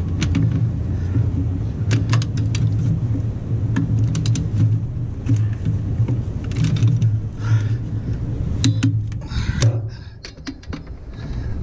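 Ratchet wrench on a socket extension clicking in short, irregular runs as a bolt is turned, with light metal clinks of the tool, over a steady low hum.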